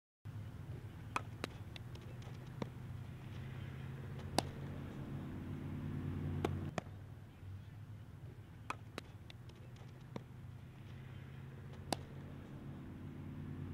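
Sharp cracks and pops of a softball being hit and caught during an infield fielding drill, about nine in all and the loudest a little over four seconds in, over a steady low hum that fades somewhat near the middle.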